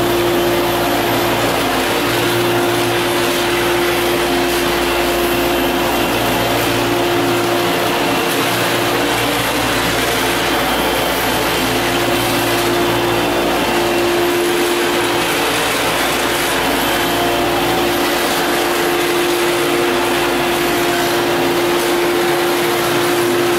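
Square-pad orbital floor sander with an attached dust-collection vacuum running steadily while screening an oak hardwood floor: a loud, even hum with one strong steady tone under the hiss of abrasive and suction.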